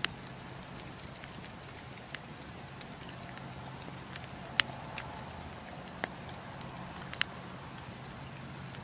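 Wood campfire crackling: scattered sharp pops and snaps, roughly one a second, over a steady low hiss. The loudest pop comes about four and a half seconds in, and a quick double snap follows a little after seven seconds.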